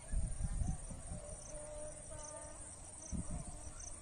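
Insects chirping outdoors: repeated short high chirps over a steady high buzz. Low rumbling noise comes near the start and again about three seconds in.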